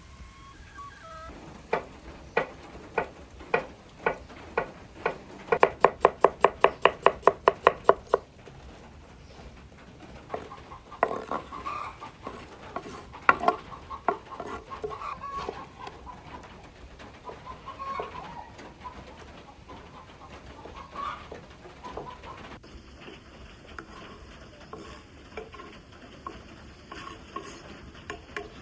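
Sharp knocks of a knife chopping on a cutting board, about one every half second at first, then quickening to about four a second for a couple of seconds. Scattered knocks and clatter follow.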